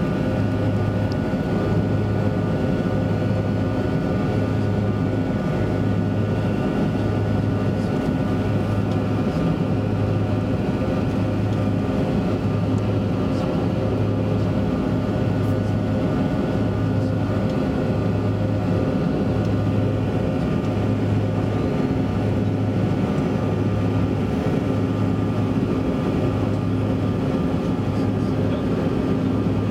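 Cabin drone of a Canadair Regional Jet's twin rear-mounted turbofan engines running steadily, heard from inside the passenger cabin. A low hum with a few steady tones over it and a slow throb about once every second and a quarter.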